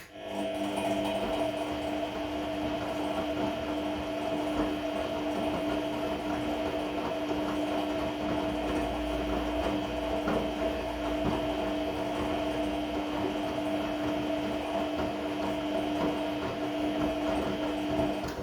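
Regal 1229 T washing machine (Vestel-built) running on a cotton 30 °C wash, with a steady whining drone in two tones over mechanical rumble. This is the odd noise from the machine that sounds like a belt.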